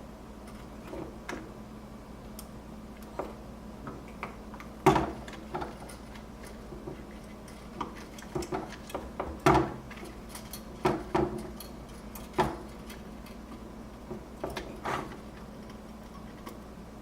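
Irregular light clicks and taps of small hand tools worked over a refrigerator control board while its capacitors are being removed, loudest about five seconds in and again near ten seconds, over a steady low electrical hum.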